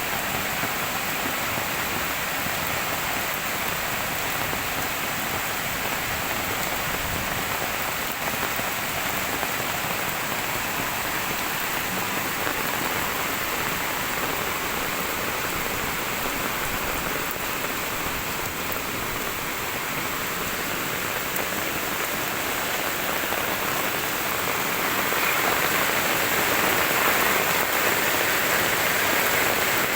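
Heavy rain falling steadily, a dense even hiss of rain hitting surfaces. It swells louder about 25 seconds in.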